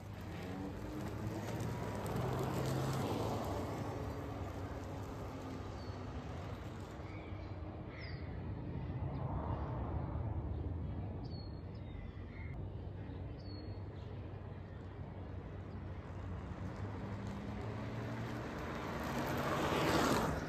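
An electric-converted 1971 Vespa Primavera being ridden: a quiet hum of motor and tyres that swells and fades several times as the scooter passes and moves off. A few short bird chirps come in the middle.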